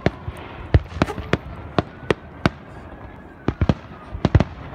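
Aerial fireworks going off: sharp bangs from bursting shells at irregular intervals, about a dozen in all, with a lull in the middle and a quick cluster near the end.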